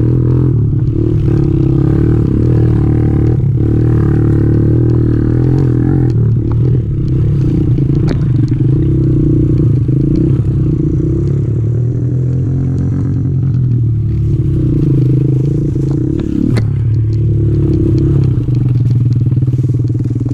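Kawasaki KLX 110 pit bike's small four-stroke single-cylinder engine running steadily under throttle, heard from on the bike, with a couple of sharp knocks from the rough trail.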